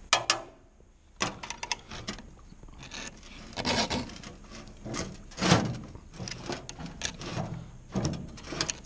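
Round chainsaw file rasping across a saw chain's cutters in slow strokes about two seconds apart, hand-sharpening the chain. In the first two seconds there are a few sharp metal clicks as the file and chain are shifted.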